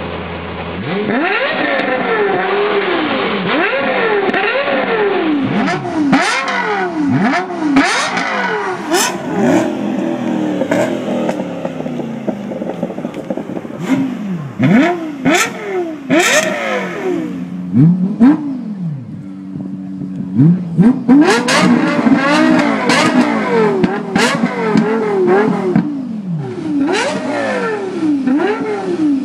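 Lexus LFA's V10 engine being revved repeatedly, its pitch shooting up and dropping straight back in quick blips, settling to a steady idle between some runs. Sharp cracks come through between several of the revs.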